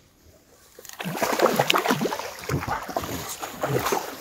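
Water splashing and sloshing as a hooked pike thrashes in a landing net and is lifted out of the lake, starting about a second in.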